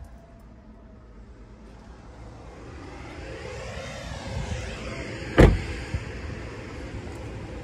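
A 2020 GMC Terrain's driver's door shut once: a single loud thud about five and a half seconds in, followed by a small click. Steady outdoor background noise runs around it.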